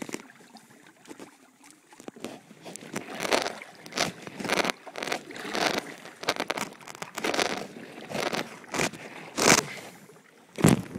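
Kayak paddle strokes: the blades dip and splash in the water, first quietly, then in regular surges about once a second from about two seconds in.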